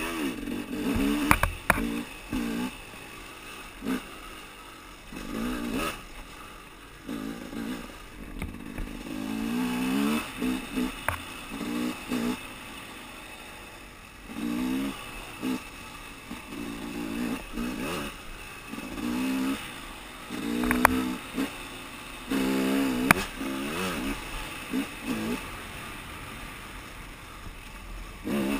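KTM dirt bike's engine revving in repeated short bursts, the pitch climbing and dropping as the throttle is opened and shut, with a few sharp knocks from the bike striking rocks.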